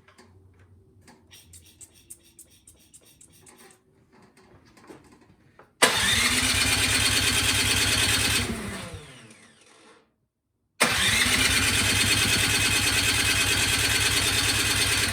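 Troy-Bilt snowblower's small engine running. About six seconds in it comes in suddenly and runs steadily, then winds down with falling pitch and stops. After a short silence it is heard running steadily again. Before it, only faint clicks.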